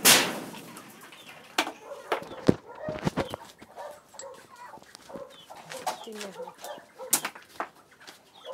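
Hens clucking, with a loud crash right at the start and scattered knocks and clatters after it.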